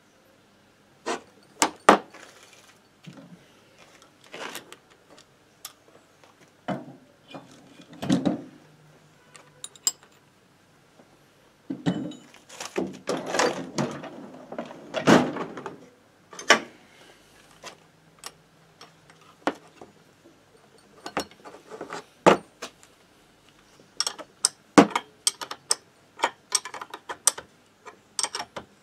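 Metal clinks, knocks and clatter of a steel bearing puller and engine parts being handled and set up on a two-stroke moped crankcase on a wooden workbench. The sharp knocks come irregularly, with busier clattering stretches in the middle and near the end.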